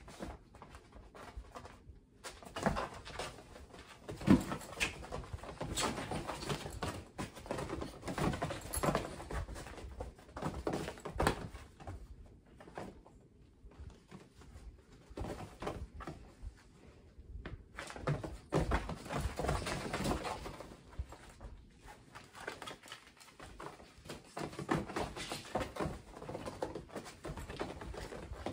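Kittens playing in a fabric playpen: soft thumps, scuffling and claws scratching the blanket and mesh walls as they pounce, wrestle and climb. It comes in spells with a couple of short lulls.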